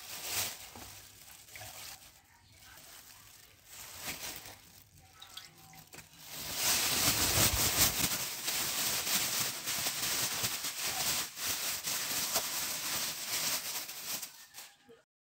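Plastic bag crinkling and rustling as chicken wings are tossed in seasoned flour inside it: light handling for the first few seconds, then about eight seconds of louder, steady shaking that stops just before the end.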